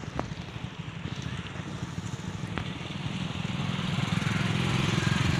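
A motorcycle engine running, growing louder over the last couple of seconds, over a steady rushing noise.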